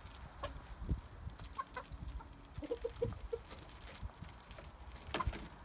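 Chickens clucking in short, low notes, a quick run of them about halfway through, over scattered light clicks as they feed.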